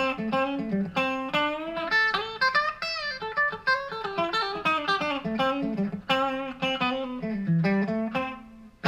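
Fender Modern Player Telecaster electric guitar played through a Vox VT20X amp: a run of single-note blues lead lines and short chord stabs on the bridge and middle single-coil pickups together, with the tone knob rolled back for a rounder, bluesier sound.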